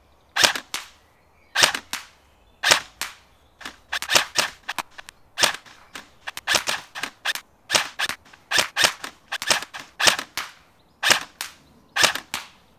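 KWA ERG electric-recoil airsoft rifle firing single shots, each a sharp crack, some followed by a fainter click. The shots come about one a second at first and quicken to about two a second about halfway through.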